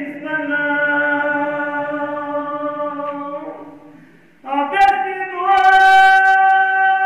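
A man's voice chanting a Balti qasida unaccompanied, drawing out long held notes. The first note fades away about four seconds in, and a new one starts half a second later and swells louder.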